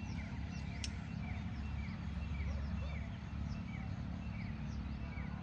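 Small birds chirping over and over, short falling calls a few times a second, over a steady low rumble of outdoor background noise, with one sharp click about a second in.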